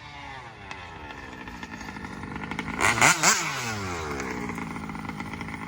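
Small two-stroke gas engine of a large-scale RC car running, its pitch sliding down, then swelling to a loud burst about three seconds in as the pitch rises and drops sharply, then running on at a steady pitch.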